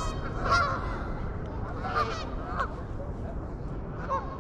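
Geese honking: a few separate calls, the loudest about half a second in and again about two seconds in, over a steady low rumble.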